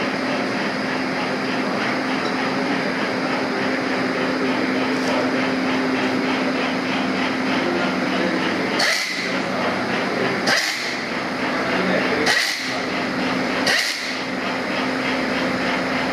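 Hand-held pneumatic nutrunner on a balancer, driving bolts into a 70cc motorcycle engine: four short bursts, about every one and a half to two seconds, starting about halfway through. Under them runs the steady hum of assembly-line machinery.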